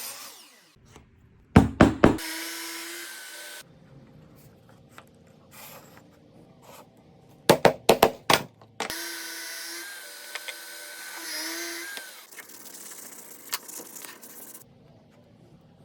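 Sharp knocks on wood in two quick groups: three about one and a half seconds in, then four or five about seven and a half seconds in, each group followed by a short ring.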